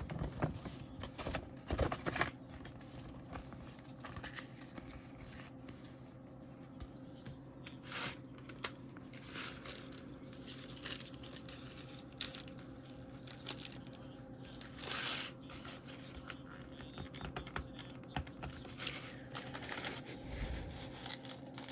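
Paper and CD packaging being handled, with scattered crinkles, rustles and light taps, as a fold-out paper poster is folded and put away.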